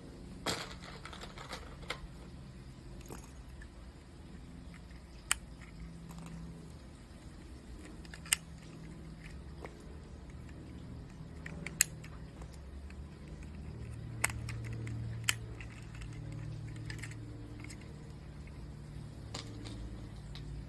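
Lego bricks clicking as pieces are handled and pressed together: sharp single clicks every few seconds over a low steady background hum.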